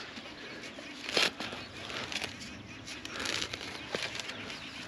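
Spade digging into sandy meadow soil: crunching and rustling of earth and cut grass, with two louder scrapes, about a second in and past the middle.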